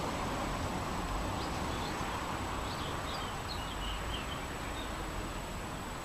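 A steady rush of wind with a low rumble under it, and a small bird giving a quick run of short, high chirps from about a second and a half in until past four seconds.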